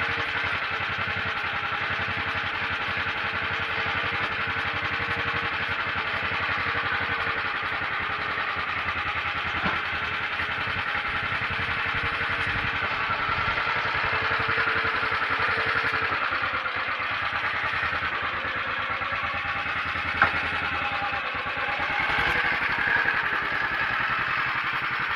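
Motor Sich walk-behind tractor's engine running steadily. Its note changes about two-thirds of the way through, and there is a short sharp knock late on.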